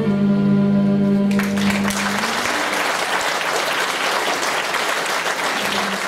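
A Gypsy band of violins, cimbalom and double bass ends a song on a held chord, and about a second and a half in, audience applause breaks out and continues steadily.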